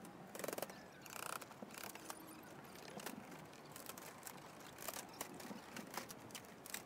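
Faint scattered clicks, knocks and short scrapes of hand work on a stripped window opening, with a couple of brief scraping sounds in the first two seconds.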